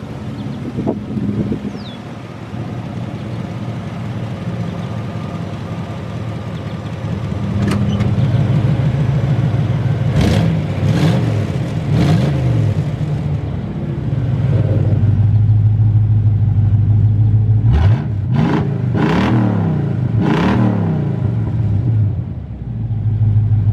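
Buick Roadmaster wagon's V8 idling and being blipped through newly installed electric exhaust cutouts, first with the cutouts closed and then with them open. The revs rise and fall quickly: three blips about ten seconds in and about four more near the end.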